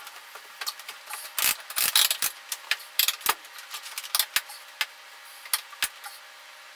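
Irregular clicks and creaks from a padded weight bench and rustling clothing as a person shifts and stretches on it, over a faint steady hum.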